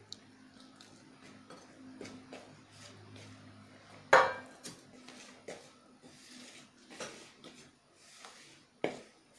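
Spoon knocking and scraping in a mixing bowl as flour is mixed with water into a dough, with one loud clink about four seconds in and another near the end.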